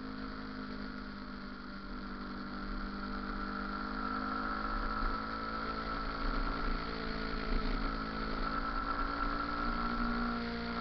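Motorcycle engine running at low speed, its pitch drifting slowly up and down, with a steady whine above it.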